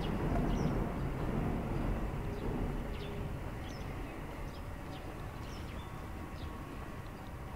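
Low rumble of road traffic that slowly fades, with small birds chirping briefly here and there over it.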